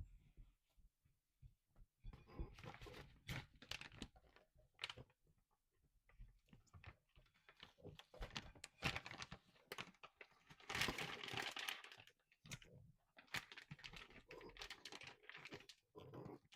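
Kitchen handling noises: irregular light clicks, taps and rustling in several bunches with short pauses. The densest bunch comes a little past the middle.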